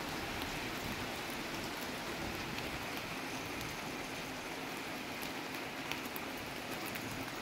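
Heavy rain falling steadily, a dense even hiss with scattered sharp ticks of drops striking nearby surfaces.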